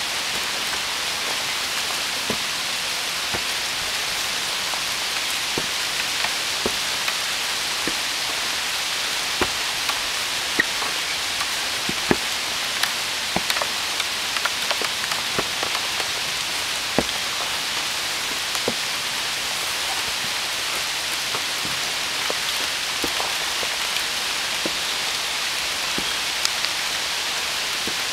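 Steady rain falling through the tree canopy, an even hiss, with single heavy drops landing close by as sharp irregular taps.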